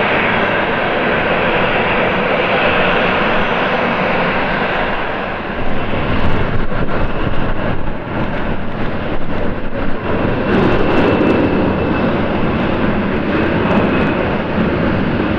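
Jet engine noise from a Thai Airways Airbus A350-941's Rolls-Royce Trent XWB engines, a loud steady roar that turns uneven and gusty about five seconds in.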